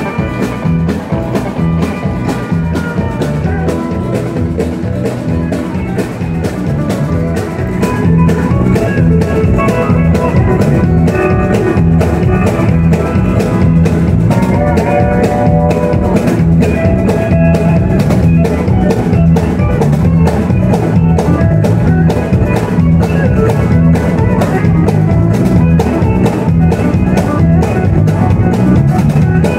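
Live country band playing an instrumental passage on drums, bass and guitars, with a pedal steel guitar playing long sliding lines; the band gets louder about eight seconds in.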